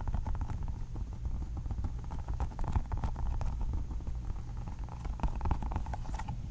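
Rapid, irregular tapping and clicking on a clear Orbeez water-bead ball held close to the microphone, many small taps a second.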